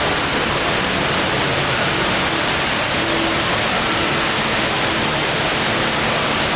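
Indoor waterfall of the HSBC Rain Vortex pouring down into its pool: a steady, dense rush of falling water that never lets up.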